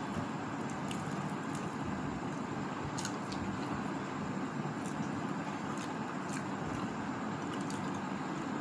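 Steady background noise with a few faint, scattered clicks from people chewing and handling samosas.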